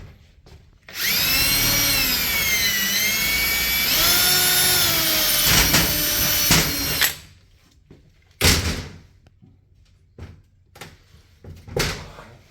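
Power drill running for about six seconds, its whine dipping in pitch and then rising again before it stops. A couple of short knocks follow.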